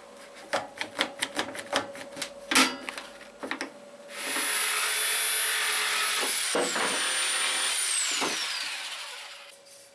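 A one-handed bar clamp ratcheting tight in a quick series of clicks, then a corded electric drill running for about five seconds, its high whine dropping in pitch twice before it stops.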